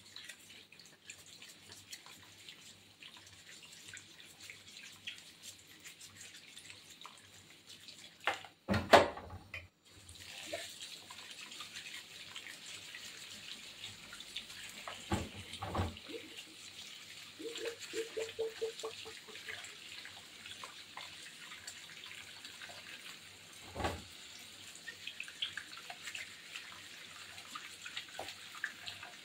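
Kitchen tap running into a stainless steel sink full of plum tomatoes as hands rinse and rub them under the stream; the water gets louder about ten seconds in. A few short knocks break in, the loudest just before the water grows louder.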